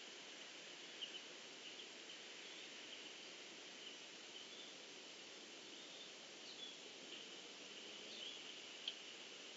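Faint pond-side ambience: a steady high insect trill over a constant hiss, with scattered short bird chirps.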